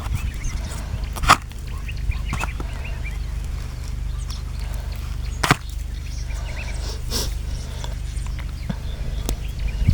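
Small birds chirping now and then over a steady low rumble, with two sharp clicks, one about a second in and one about five and a half seconds in.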